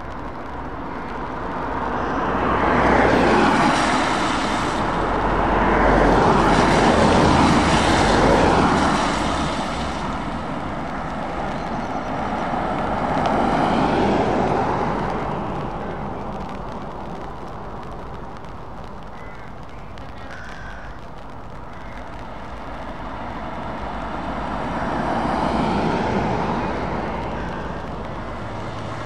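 Road traffic passing on a wet road: cars, vans and heavy lorries go by one after another, each pass rising to a hiss of tyres on wet tarmac with engine noise and then fading. Several swells, the loudest in the first third.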